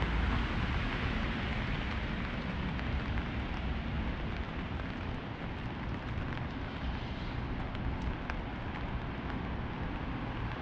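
Steady hiss of light rain on a wet city street, with a low, uneven rumble underneath and a few faint ticks of drips in the second half.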